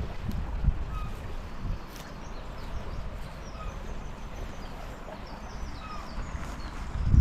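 Small birds chirping in short, high calls over a steady outdoor background, with low wind rumble on the microphone in the first second or so.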